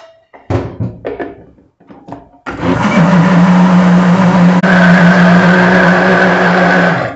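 Countertop blender running steadily for about four and a half seconds, blending corn, condensed milk and gelatin into a smooth mousse mixture, then switching off just before the end. Before it starts, a few short knocks as the jar and lid are handled.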